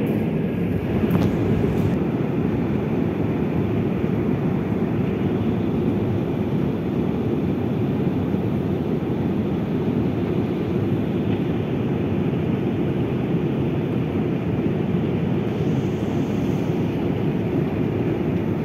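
Metro train running, a steady even noise of the moving car, with a faint high whine briefly near the end.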